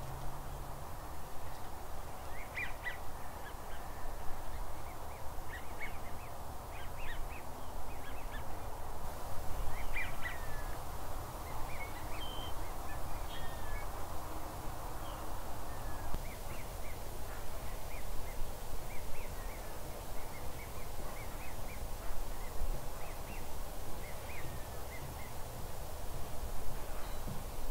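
Waterfowl calling: many short calls scattered through the whole stretch, over a steady background of noise and low rumble.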